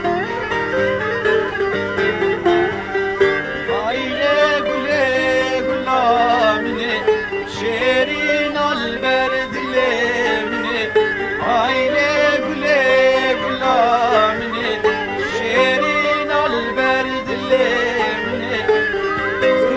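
Live Kurdish folk music: long-necked saz (bağlama) lutes strumming and plucking a rhythmic accompaniment with a wooden end-blown flute (blûr). From about four seconds in, an ornamented, wavering vocal melody joins the instruments.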